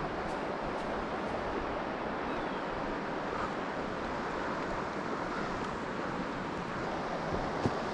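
River current rushing over rocks, a steady even wash, with a brief tap near the end.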